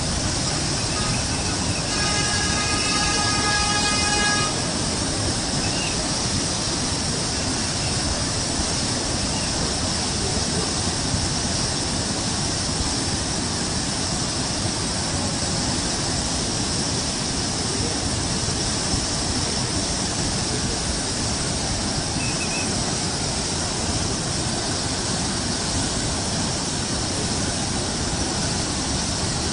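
Floodwater of a flooded river rushing past in a fast, churning torrent, a loud, steady noise. A brief pitched tone sounds about two seconds in.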